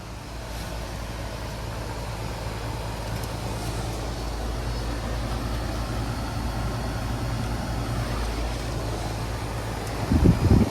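Residential heat pump outdoor units running in heating mode: a steady low hum of compressor and condenser fan with a faint steady tone above it. Near the end there is a brief, loud, low rumble.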